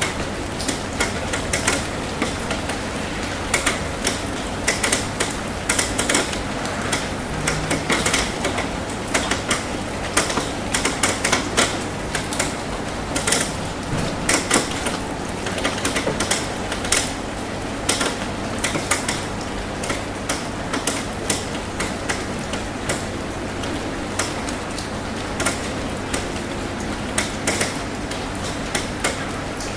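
Rain falling, with single drops striking as sharp, irregular ticks over a steady hiss.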